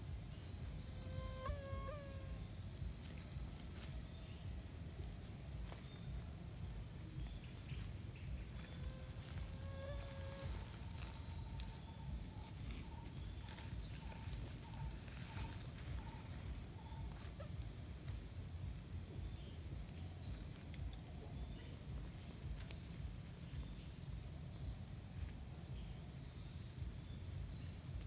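Steady high-pitched drone of forest insects, unbroken throughout, over a low steady rumble. Two short pitched calls stand out near the start and about ten seconds in, and a run of soft, evenly spaced notes follows between about twelve and seventeen seconds.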